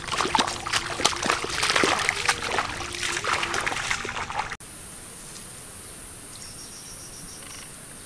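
Water splashing and trickling, with many small clicks and knocks. About halfway through it cuts off sharply to a steady hiss with a thin high whine.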